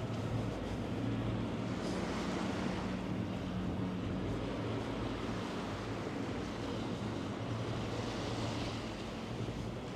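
Steady outdoor riverside ambience: a wash of wind and water noise with a steady low engine-like hum underneath.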